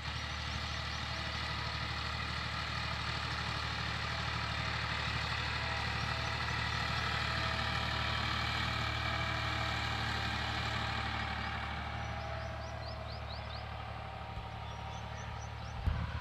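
Massey Ferguson 260 tractor's three-cylinder diesel engine running steadily under load while pulling a heavy cultivator through dry soil. It grows louder as the tractor passes closest around the middle, then fades as it moves away. Faint bird chirps come in over it in the second half, and there is a brief knock near the end.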